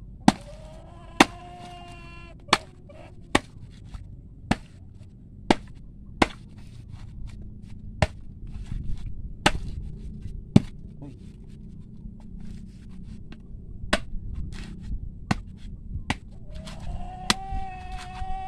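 Machete chopping into a coconut's fibrous husk: sharp whacks, irregular and roughly once a second, as the husk is hacked off.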